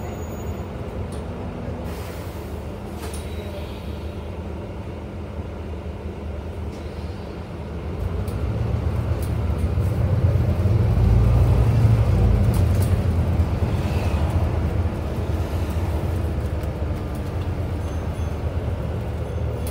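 Inside a Scania Enviro400 MMC double-decker bus under way: a steady low drone of the engine and road noise, with occasional light clicks and rattles. It grows louder about eight seconds in, is loudest a few seconds later, then eases back a little.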